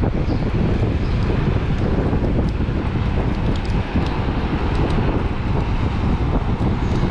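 Steady wind buffeting on the microphone of a moving Emove Cruiser electric scooter.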